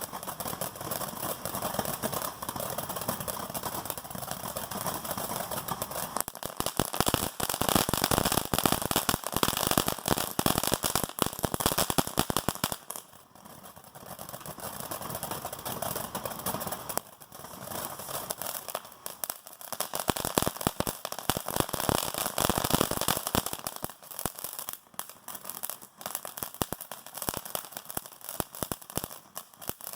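Fiery Frogs consumer firework burning, giving off a dense, continuous crackle of many tiny pops that swells and dips in several waves.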